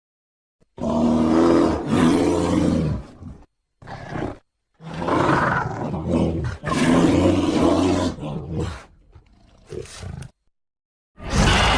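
Creature sound effect for a zombie sauropod: a series of pitched, growling roars, separated by short pauses. The last one trails off, and another roar begins near the end.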